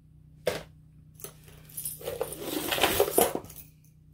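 Loose jewelry clinking and jangling as it is rummaged through by hand: one click about half a second in, then a spell of rattling and clinking about two seconds in.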